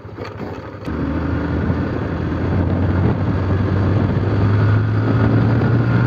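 Motorcycle engine pulling under acceleration as the bike speeds up. It gets louder about a second in, and the low engine note keeps building toward the end.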